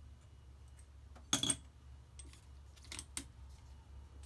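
Metal hand tools clinking, a socket wrench with an extension being fitted and worked on the blower's fasteners. There is a sharp cluster of clinks about a second and a half in and two lighter ones about three seconds in, over a low steady hum.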